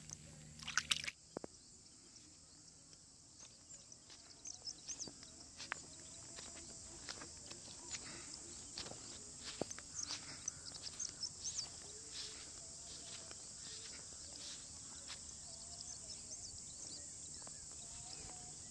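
Open-air countryside ambience: a steady high-pitched hiss with many short, high chirps scattered through it, and a few sharp clicks about a second in.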